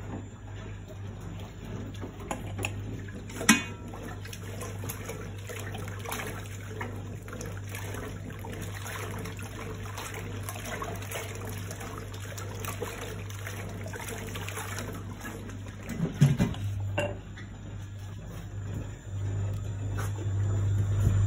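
Early Hotpoint Empress washing machine running, its agitator churning and sloshing the water over a steady low motor hum. A sharp click comes about three and a half seconds in, and a brief louder knocking around sixteen seconds.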